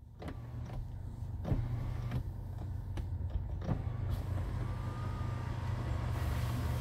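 2020 Kia Telluride's power sunroof motor running with a steady low hum as the sunshade and glass panel slide open, with a handful of sharp clicks in the first few seconds.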